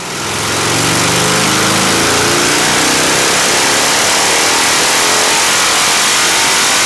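A 1999 Harley-Davidson Dyna Glide's V-twin engine does a full-throttle dyno pull through open drag pipes. It is loud, and its pitch rises as the revs climb. On this pull the engine loses mid-range torque and starts to misfire: 'drag pipe sag', a typical problem with drag pipes.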